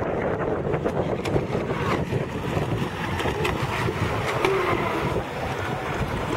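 Wind buffeting the microphone over the running of racing boats out on the water, a steady rushing noise without a clear engine pitch.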